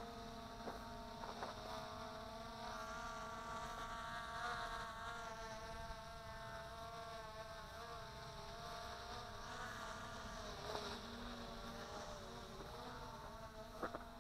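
Hubsan X4 Pro quadcopter's motors and propellers buzzing faintly, a steady whine whose pitch shifts a little now and then.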